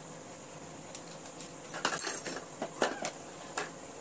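Pink plastic spoon clicking and tapping against the bowls as salt is spooned onto a bowl of grated paneer mix: a handful of light, sharp taps in the second half, after a quiet start.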